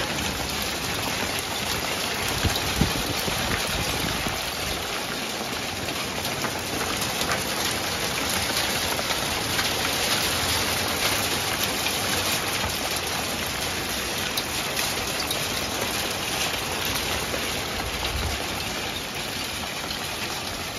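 Hail pelting down hard: a dense, steady patter of hailstones striking the deck and patio furniture, with a couple of louder knocks about two and a half seconds in.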